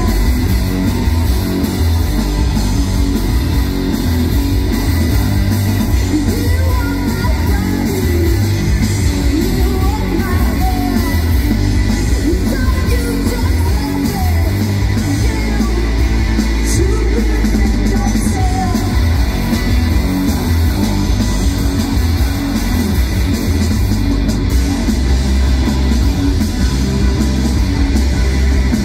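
Live rock band playing loud, with distorted electric guitars, bass guitar and a drum kit through stage amplifiers, and vocals over the top.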